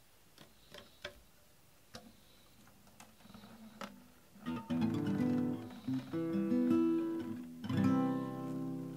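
Acoustic guitar: a few light knocks as it is handled, then from about four and a half seconds in, chords strummed and left ringing, with another strong strum near the end.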